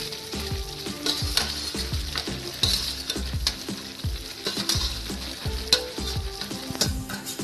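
Wheat flour roasting in desi ghee in a steel kadhai, sizzling steadily as crumbled khoya is tipped in from a steel plate, with scattered sharp clicks and scrapes of steel on steel.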